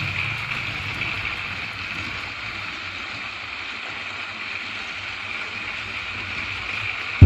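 Steady background din from demolition derby cars. An engine's low rumble dies away in the first second, leaving an even hiss until a loud engine burst starts right at the end.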